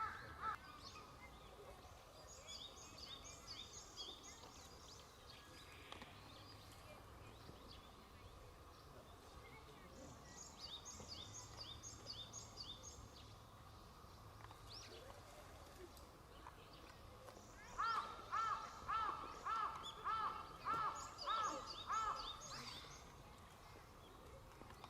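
Birds calling outdoors. A small bird gives two short runs of quick, high chirps. Near the end a louder call repeats about nine times, at roughly two a second.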